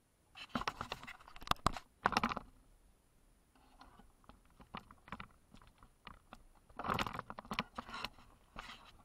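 Footsteps crunching on dry, gritty ground, in two louder spells with scattered lighter crunches and clicks between them.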